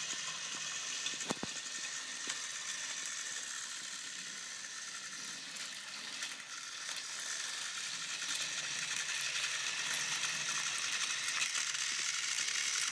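Battery-powered Trackmaster Rheneas toy engine running on plastic track, its small motor and gearbox whirring steadily as it pulls a coach. There is one sharp click about a second in, and the whirring grows a little louder near the end.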